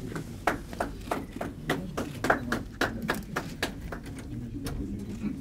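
An irregular run of sharp clicks or claps, about three to five a second, that stops about three quarters of the way through.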